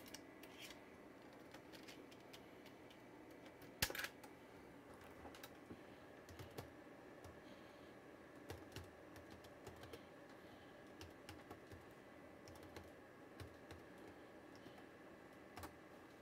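Faint keystrokes on a computer keyboard, typing a command in short irregular runs of clicks over a steady low hum, with one louder clack about four seconds in.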